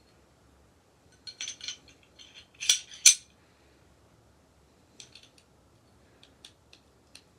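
Metal clanking from a Glock 19X pistol being handled: a quick flurry of clicks and clacks starting about a second in, peaking in two sharp, loud clacks close together, then a handful of lighter, separate clicks.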